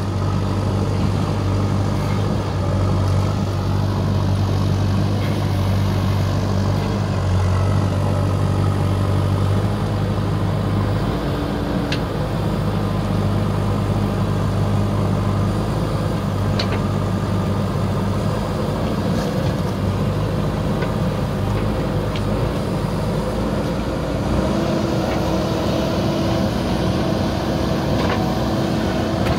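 JCB 3DX backhoe loader's diesel engine running steadily under load as the rear backhoe arm digs wet soil, its note shifting about a third of the way in and rising slightly near the end, with a few faint clicks.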